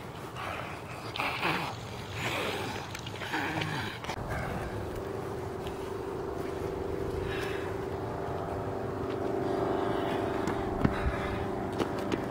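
Short bursts of snarling, gnawing vocal noise for the first few seconds, then a steady engine hum at one fixed pitch takes over.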